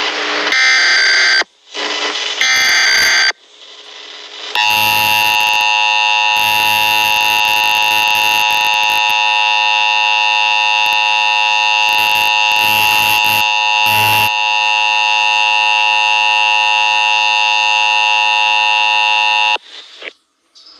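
Emergency Alert System tones: two short screechy digital data bursts of the SAME header, then the harsh two-tone EAS attention signal, held steady for about fifteen seconds and cutting off abruptly. They mark the start of an emergency alert broadcast.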